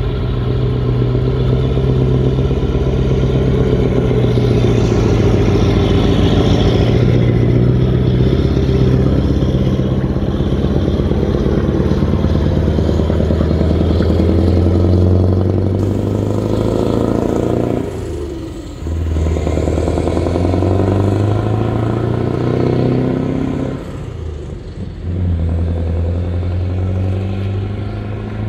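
Scania R500 V8 lorry with loud pipes pulling away under load, its deep exhaust note climbing through the gears. The note drops away for a moment twice, at gear changes, about two-thirds of the way in and again near the end.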